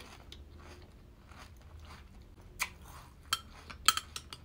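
Close-up chewing of a mouthful of sugary cereal in milk, with a few sharp clicks in the last second and a half.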